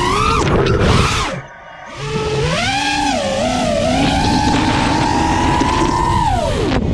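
FPV quadcopter's Emax 2306 2750kv brushless motors and Gemfan props whining on 6S power, the pitch climbing with throttle. About a second and a half in, the throttle is cut and the whine drops away for half a second, then it comes back wavering, holds a high steady pitch, and falls near the end. A rush of wind on the microphone runs underneath.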